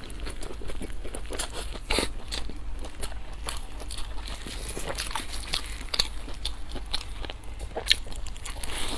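Close-miked eating: biting into and chewing a pan-fried bun, with a stream of irregular crunches and clicks and sharper crunches about two, six and eight seconds in.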